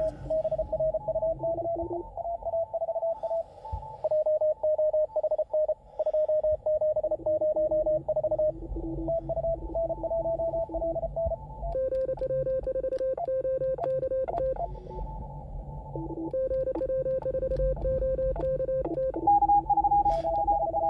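Morse code from an Elecraft K2 transceiver's speaker on a crowded 20-metre CW contest band: several stations keyed at once at different pitches, fast dots and dashes overlapping. About twelve seconds in, and again later, a stronger keyed tone at one pitch rises above the rest.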